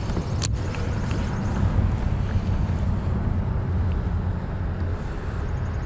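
Wind buffeting the microphone with a steady low rumble. There is a single sharp click about half a second in, during a cast, and faint rapid ticking near the end.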